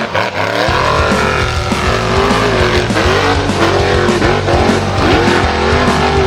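Formula offroad car's engine revving hard, its pitch rising and falling again and again as the throttle is worked, with music underneath.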